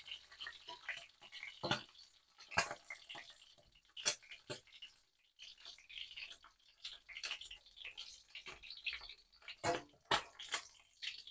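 Hot oil crackling and popping faintly in a wok around a few leftover pieces of fried whitebait, with scattered sharp clicks as a slotted spatula works in the pan.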